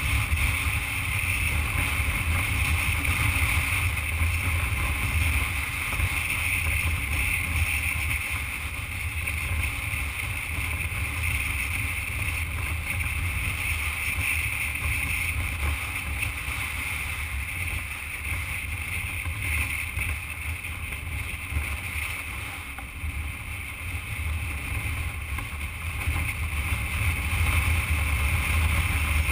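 Motorcycle riding steadily on a gravel road: engine running at cruising speed under a constant rush of wind noise on the microphone, easing off somewhat past the middle and picking up again near the end.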